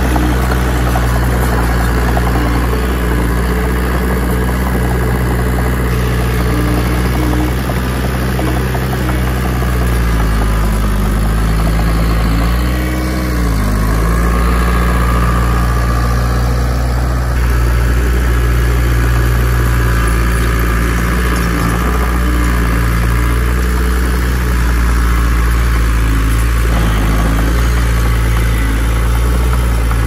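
Komatsu bulldozer's diesel engine running steadily, its pitch briefly dipping and recovering about halfway through.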